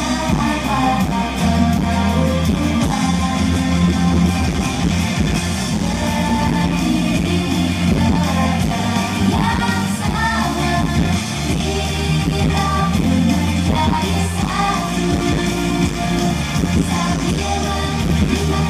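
Girl group singing a pop song live into handheld microphones, several voices together over loud amplified pop-rock music with guitar and a steady beat.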